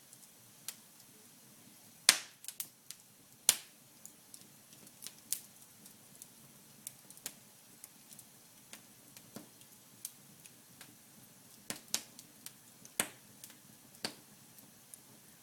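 Wood fire in a fireplace crackling: irregular sharp pops and snaps of burning logs, two louder pops about two and three and a half seconds in, and smaller crackles scattered throughout.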